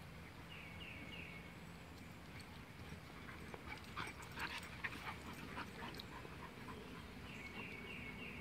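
Puppies playing and wrestling, with a cluster of short yips and scuffles about four seconds in. A bird's quick three-note call sounds near the start and again near the end.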